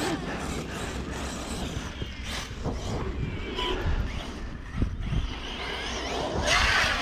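Traxxas Sledge brushless RC monster truck running over rough ground, with steady rushing noise and scattered knocks. A louder rush comes near the end with a falling whine.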